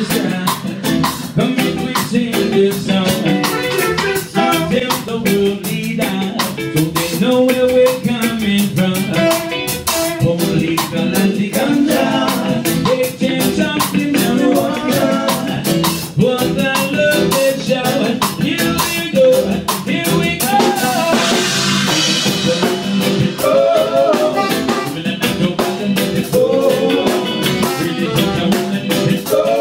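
A live band playing a song: a man singing into a microphone over a drum kit, electric guitar through an amplifier, and saxophone.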